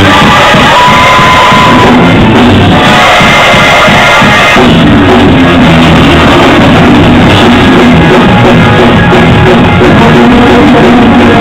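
Very loud live church band music with drums and other instruments, with a stronger low beat coming in about four seconds in.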